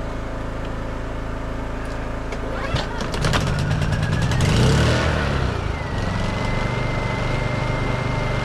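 A portable generator runs steadily. About three seconds in, the bear-damaged generator is started: a quick series of cranking strokes, a surge, then it settles around six seconds into steady running with a constant high whine.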